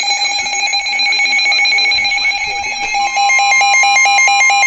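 Emergency alert attention tones, loud and electronic: a steady high alarm tone with overtones, joined about three seconds in by a second steady tone and a rapidly pulsing beeping tone, about five or six beeps a second.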